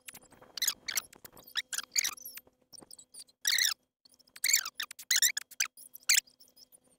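Squeaky toy squeaking over and over in short, high-pitched squeaks, coming in irregular clusters with brief pauses between them.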